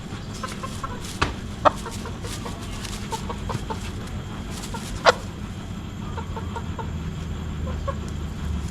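Young fighting rooster clucking in a few short sharp calls, the loudest about five seconds in, with fainter clucks between, while being handled; the bird is stressed.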